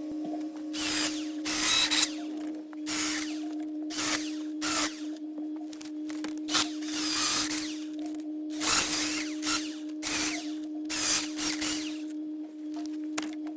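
Electric yard tool's motor running steadily, with a dozen or so short, irregular bursts of noise as wood is cut or crunched.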